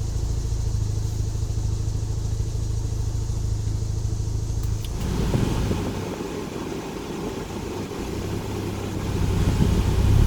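1990 Mazda RX-7's 13B rotary engine running as the car is driven, a steady low hum under road noise. About five seconds in, a louder rushing hiss comes in over it, and the engine hum swells again near the end.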